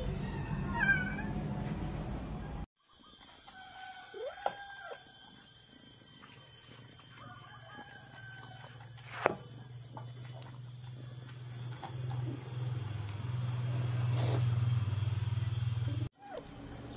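Domestic cats meowing: a short meow about a second in, then a few thin mews a couple of seconds later.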